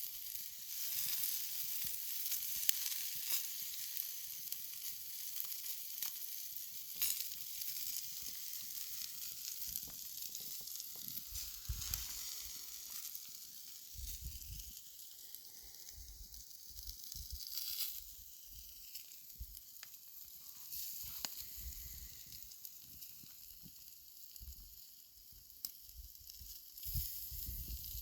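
Tomahawk ribeye steak sizzling over a juniper wood fire: a steady high hiss broken by scattered sharp crackles, with a few low rumbles now and then.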